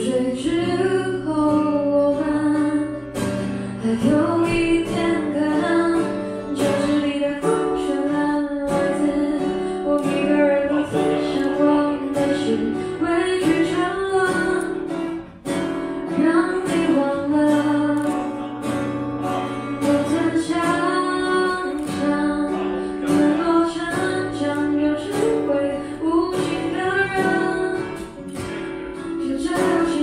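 A woman singing with a strummed acoustic guitar, performed live.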